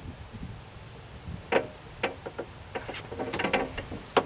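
Scattered light clicks and taps of a socket and hand tools working on a bolt inside a car door, with a small quick run of clicks about three and a half seconds in and a sharper click near the end.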